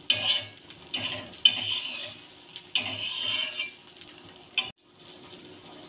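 Egg omelette with mustard seeds and sesame sizzling in hot oil on an iron tawa, with a metal spatula scraping against the pan four times, about once every second and a half. The sizzle breaks off for an instant near the end.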